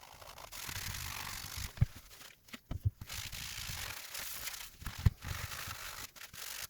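Scrubbing at a tough mark on a PS5 DualSense controller's plastic shell with isopropyl alcohol. It comes as two long stretches of scratchy rubbing, with a few light knocks in between.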